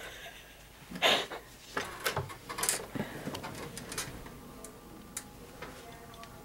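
A room door being unlatched and pulled open, with camera handling: a burst of rustling about a second in, followed by a run of clicks and knocks from the handle and latch until about four seconds in.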